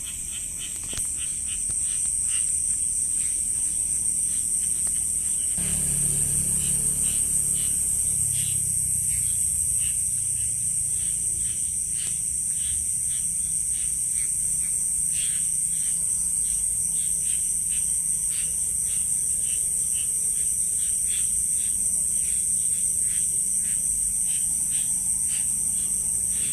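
Night chorus of insects around rice paddies: a steady high-pitched insect trill, with many short chirps scattered through it, likely including frogs. A low rumble comes in about six seconds in.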